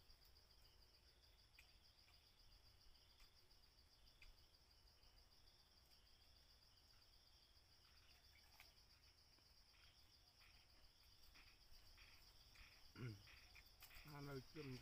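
Near silence with faint, steady high-pitched insect chirring and a few faint clicks.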